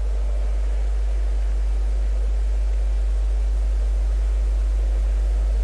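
Steady low hum with a faint hiss above it, carried in the microphone's sound feed while no one speaks.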